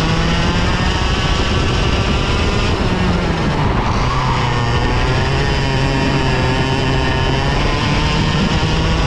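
Two-stroke TaG Cadet racing kart engine running at high revs, its high-pitched note falling about three seconds in as the throttle comes off, then climbing again, with another dip and rise near the end.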